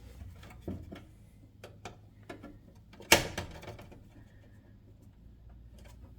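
Scattered light clicks and taps of handling plastic parts and a screwdriver on a range's control board, with one sharp knock about three seconds in.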